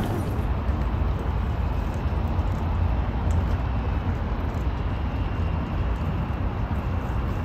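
A steady low rumble with no distinct tones.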